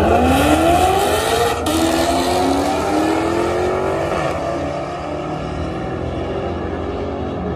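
Two cars launching off the start line of a drag strip at full throttle. Their engine pitch climbs, drops back at a gear change about one and a half seconds in, climbs again, then fades as the cars pull away down the track.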